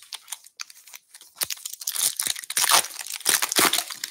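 Foil wrapper of a 2023 Bowman Baseball hobby pack being torn open and crinkled by hand. A few scattered crackles come first, then a dense run of crinkling and tearing starts about two seconds in.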